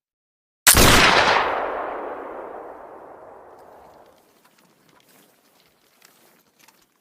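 A single loud shot from a Brown Bess flintlock musket, about half a second in, with a long echoing tail that dies away over about three and a half seconds.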